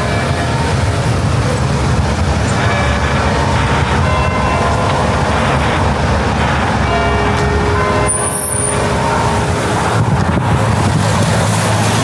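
Church bells ringing, several strikes at irregular moments that each hang and fade, over steady, louder road traffic of cars and trucks.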